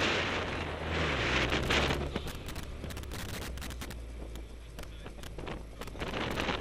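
A car driving past the outside-mounted camera, wind buffeting the microphone: a heavy rush of wind and tyre noise for the first two seconds, the engine note falling as the car slows after its autocross run, then quieter running with many scattered sharp clicks.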